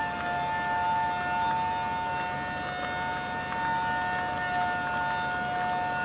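Fire engine sirens sounding together, a steady, unbroken drone of two held pitches that neither rise nor fall.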